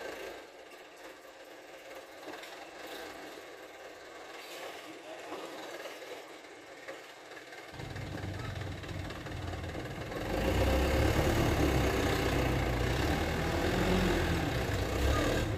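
Diesel engine of a loaded light dump truck running on a dirt site. About halfway through a deeper engine note comes in, and after about ten seconds the engine gets clearly louder.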